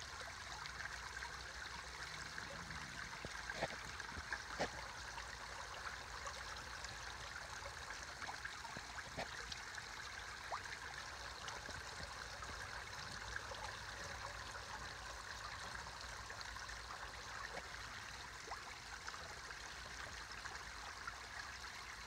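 Small garden-pond waterfall splashing and trickling steadily into a koi pond, with a few faint ticks scattered through.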